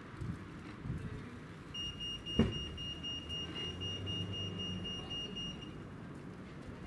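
A steady, high electronic alarm tone holds for about four seconds. Partway through there is a single sharp knock, all over a low background rumble.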